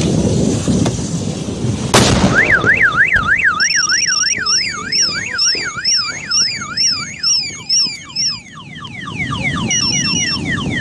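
A sudden sharp bang about two seconds in, then a car alarm going off: a warbling tone sweeping up and down about twice a second with high beeps over it, changing near the end to a run of quick falling chirps.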